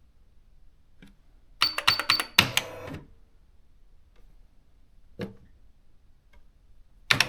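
Nakajima AX-80 electronic typewriter printing: a quick run of about five sharp strikes, then a heavier clack with a short rattle. A single click follows about three seconds later, and another strike comes near the end.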